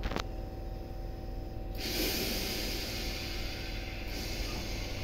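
Electric multiple unit standing at the platform with a steady low equipment hum; a click just at the start, then a sudden loud hiss of compressed air about two seconds in that eases after about two seconds, typical of the pneumatic brakes releasing before the train moves off.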